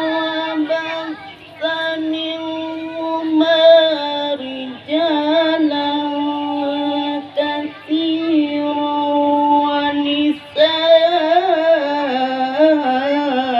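Qur'an recitation chanted in the melodic qiro'ah style in a high voice: long, ornamented held notes with pitch turns, broken by short breaths between phrases.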